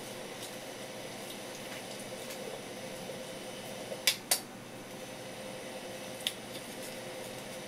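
Kitchen knife knocking twice on a wooden cutting board about four seconds in, a quarter second apart, then once more lightly near six seconds, as a fish is filleted, over a steady faint hum.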